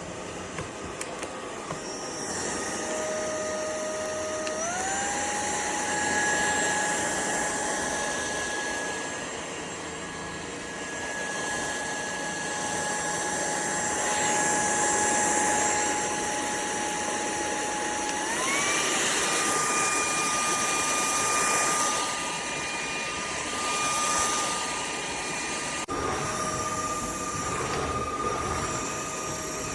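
UNINELL UV3 cordless stick vacuum running, a rushing airflow noise over a steady electric motor whine. The whine jumps up in pitch twice, about four and a half seconds in and again near eighteen seconds, as the motor steps up to higher power settings.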